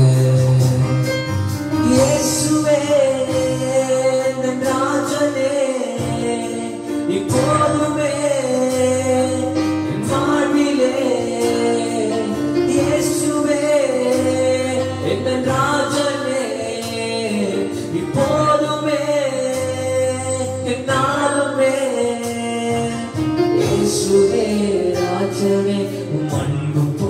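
A man sings a worship song to a Yamaha electronic keyboard, whose sustained chords and steady bass line accompany the voice.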